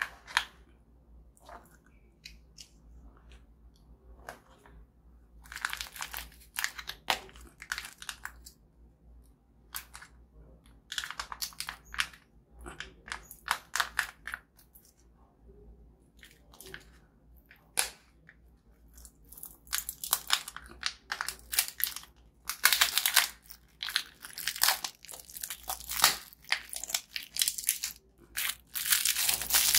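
Plastic snack and biscuit wrappers crinkling and tearing as the packets are handled and opened, in bursts of a few seconds that grow louder and denser near the end.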